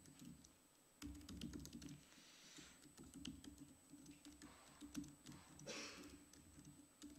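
Faint, irregular typing on a laptop keyboard: single key clicks scattered at an uneven pace as code is typed.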